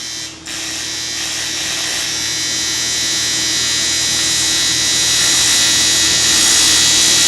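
TIG welding arc on aluminium, a steady hissing buzz with many steady tones in it. It drops out briefly about half a second in, then builds slightly louder and stops abruptly as the arc is broken.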